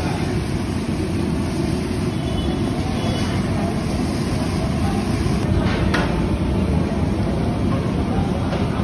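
Ghewar batter frying in a hexagonal mould in a pan of hot ghee: a steady hiss over a constant low rumble, with a couple of faint knocks about six seconds in.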